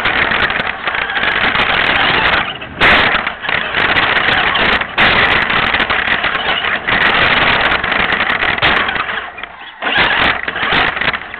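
Remote-control car driving fast over rough pavement, heard from a camera riding on it: a loud rattling rush of wheels and chassis with a steady high whine. It is broken by sharp knocks from bumps and dips briefly a few times.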